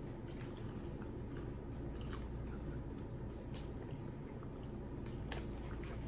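Close-miked chewing and wet squishing of seafood boil eaten by hand. A handful of short sharp clicks come from fingers picking through the food in plastic boil bags, over a low steady hum.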